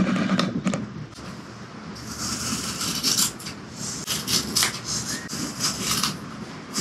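Scissors cutting through woven fiberglass cloth: a run of crisp, irregular snips and rasps starting about two seconds in.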